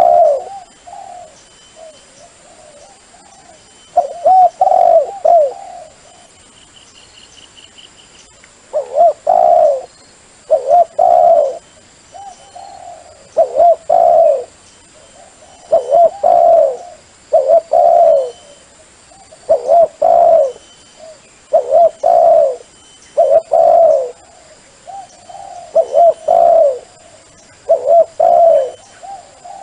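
A dove cooing over and over, short phrases of a few low notes about every two seconds; a dove call of the kind played to lure wild doves. A faint high chirping trill comes in briefly about seven seconds in.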